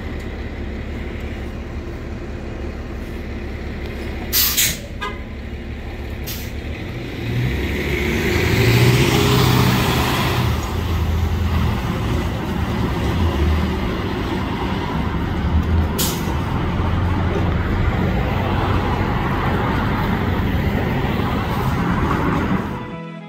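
A New Flyer XD40 transit bus's Cummins ISL9 diesel idles at a stop. A short blast of air from the brakes comes about four and a half seconds in. The engine then grows louder as the bus pulls away.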